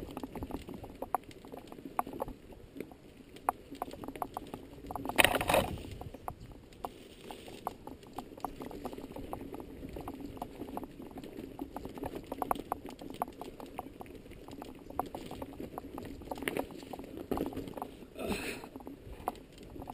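Mountain bike descending a rocky dirt singletrack: tyres rolling and crunching over stones and gravel, with a steady run of small clicks and rattles from the bike over the bumps. Two louder, noisy bursts stand out, about five seconds in and near the end.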